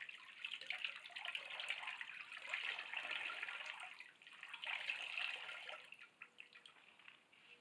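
Soaked beaver hide being squeezed and wrung by hand over a tub of alum tanning solution: liquid splashes and runs back into the tub in several rushes, then thins to scattered drips near the end. This is the hide being wrung out of the tanning bath after its soak.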